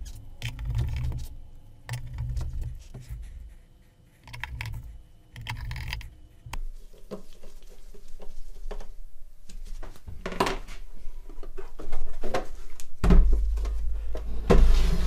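Clicks, scrapes and knocks from working on a black sheet-metal amplifier case on a tabletop as its countersunk Phillips screws are secured, with dull handling thuds early on. A heavier thump about 13 seconds in comes as the case is shifted on the table.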